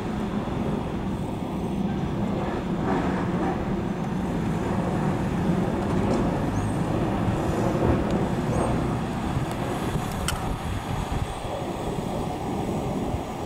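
1925 Pierce-Arrow's straight-six engine running as the car drives slowly toward the microphone, a steady low rumble. A single sharp tick is heard about ten seconds in.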